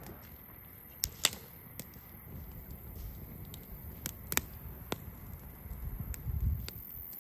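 Split pine logs burning in a campfire, crackling with scattered sharp pops, the loudest about a second in, over a low rumble of flame that swells near the end.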